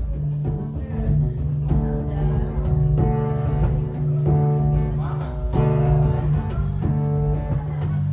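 Acoustic guitar strummed in a steady rhythm, chords changing every second or so: the instrumental lead-in to a live song.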